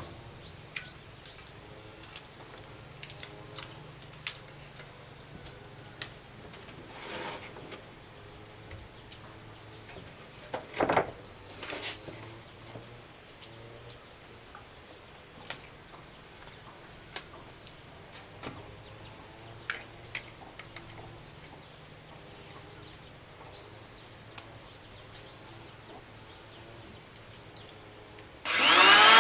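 Steady high-pitched insect buzz with scattered light knocks and taps from handling wood or tools. Just before the end a power tool starts up loudly, its pitch swinging up and down.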